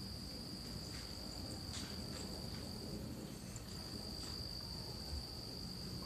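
A steady, shrill insect trill, pausing briefly about three seconds in, over a faint low steady drone: the unexplained engine-like noise heard day and night with no aircraft in sight.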